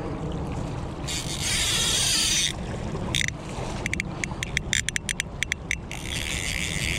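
River current flowing, a steady low rumble under a hiss. A brighter rush of hiss comes in about a second in and lasts a second and a half, and a run of irregular sharp clicks follows between about three and six seconds in.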